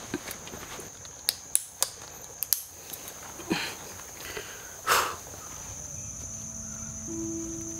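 Backpack straps and plastic buckles being pulled and fastened: a handful of sharp clicks in the first couple of seconds, then two longer rustles of strap and pack fabric. Under it, a steady high drone of insects, and soft held music notes come in near the end.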